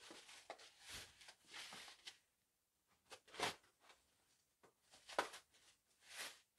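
Scissors snipping through bubble wrap and the plastic wrap crinkling as it is pulled off a cardboard box: a few short, quiet rustles and snips with a pause a couple of seconds in.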